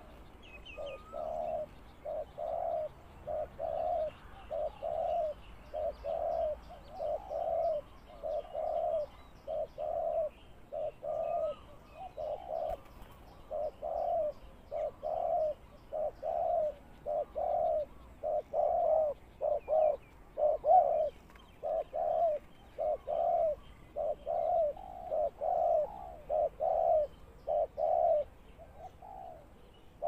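Spotted doves cooing: a steady run of low coos, about one or two a second, with no break. Faint high chirps of small birds sound behind them.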